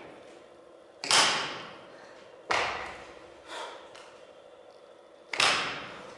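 A man breathing out hard through the mouth: three strong, sharp exhales and a weaker one, each starting suddenly and trailing off, one to two seconds apart. This is a lifter catching his breath after a hard dumbbell set.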